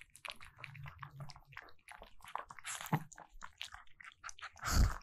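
Golden retriever puppy eating from a stainless steel bowl: a continuous run of quick chewing clicks, with one louder thump near the end.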